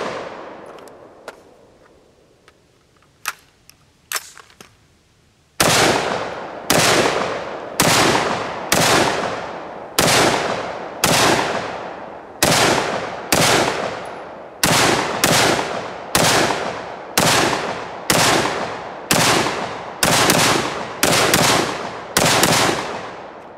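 5.56 AR-15 rifle firing a steady string of about twenty semi-automatic shots, roughly one a second, each with a short ring-out. The string begins after a lull of about five seconds that holds only a few faint clicks.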